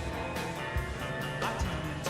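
Upbeat music with a guitar and a steady drum beat, a hit about every half second.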